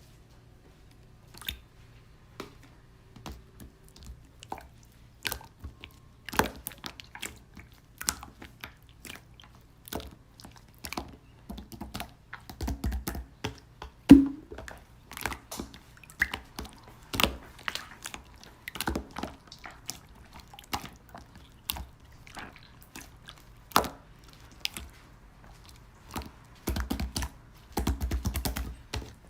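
Slime being handled and squished, making irregular sticky clicks and pops, with denser flurries about halfway through and near the end.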